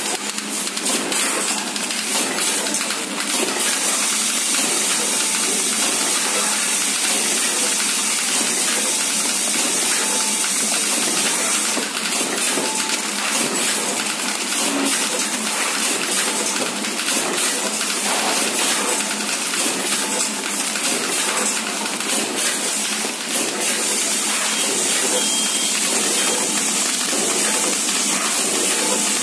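Socket packaging machine running steadily: a film-wrapping bagger and its conveyor making a dense, even hiss with some light clicking in the first few seconds.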